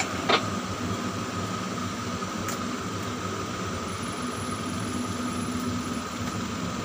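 Steady mechanical hum with a thin, constant whine in a tower crane's operator cab, with a short click about a third of a second in.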